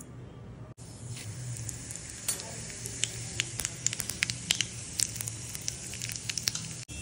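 Whole spice seeds frying in hot oil in a small pan: a steady sizzle with sharp pops and crackles, which come thick and fast from about two seconds in.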